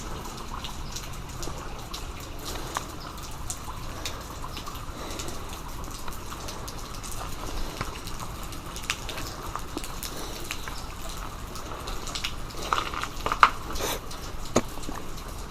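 Water trickling and dripping, a steady hiss with many small scattered drips, and a few sharper clicks or knocks near the end.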